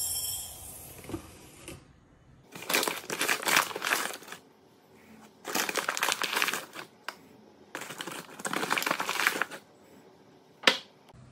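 Dry cracked wheat (jareesh) poured from a glass cup into a glass bowl: a rushing hiss of falling grains, three pours of a second or two each. Near the end comes a single sharp tap.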